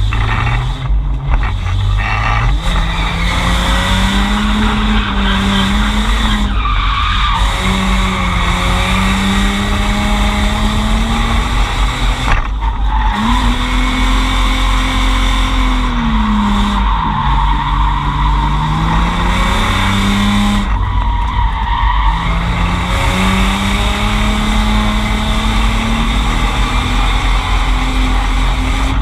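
Drift car sliding under power: its engine is held at high revs, the pitch dipping and climbing back several times, over continuous tire squeal.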